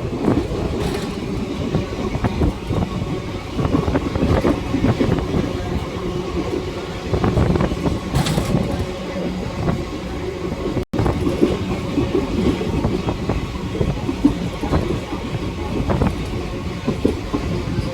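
Train running along the track: a steady rumble of wheels on rails, with a momentary drop-out to silence about eleven seconds in.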